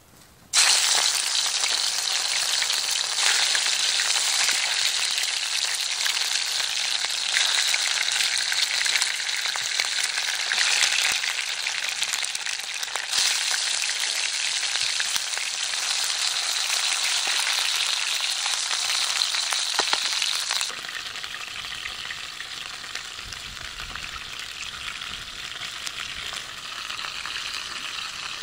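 Fish pieces sizzling in hot oil in a frying pan, starting suddenly as the first piece goes in. The sizzle drops to a quieter level about twenty seconds in.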